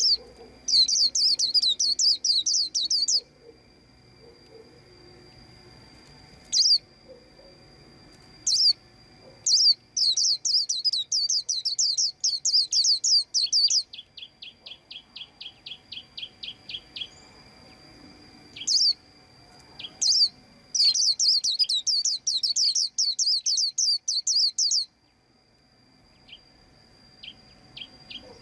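White-eye chirping: three fast, high twittering runs of a few seconds each, with single sharp calls between them and a run of fainter quick ticks, about five a second, after the middle run.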